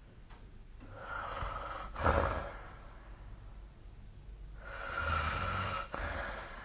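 A sleeping person snoring: two long snoring breaths, the first about a second in and the second near the end, each ending in a short, louder rasp.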